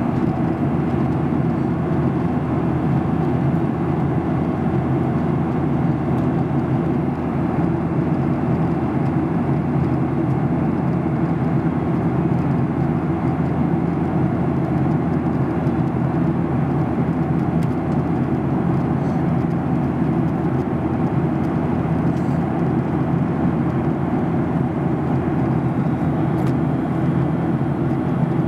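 Jet airliner cabin noise in flight: the engines and rushing air make a steady, unbroken roar with a constant low hum beneath it.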